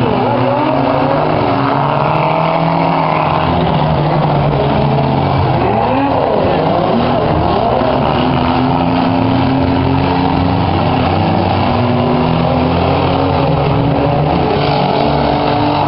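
Several compact-car engines running and revving at once, their pitches rising and falling over one another, as the cars manoeuvre in a demolition derby.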